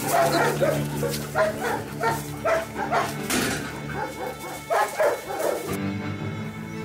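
A dog barking in a quick string of short, high barks, two or three a second, stopping about a second before the end. Soft background music plays underneath.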